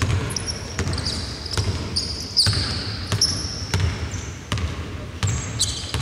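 A basketball being dribbled on a court, bouncing about twice a second, with short high-pitched squeaks of sneakers on the floor.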